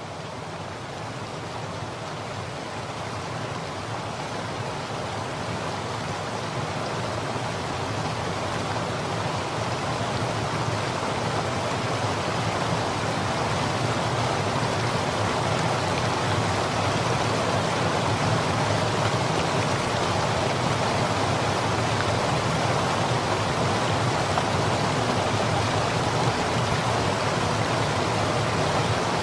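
River water rushing over rocks and rapids in a steady noise that grows louder over the first dozen seconds and then holds steady.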